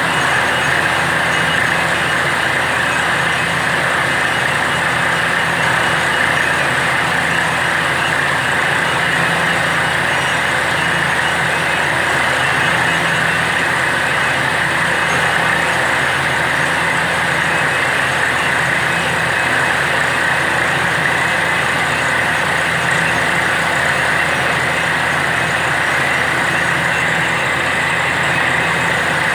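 Truck-mounted borewell drilling rig running steadily while drilling, its engine and air compressor droning as compressed air blows water and rock cuttings out of the bore with a steady hiss.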